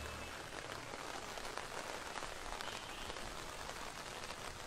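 Heavy rain falling steadily onto floodwater covering a street, an even hiss of drops striking the water.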